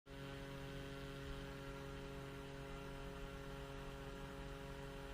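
Steady electrical hum made of several fixed tones over a faint hiss, unchanging throughout.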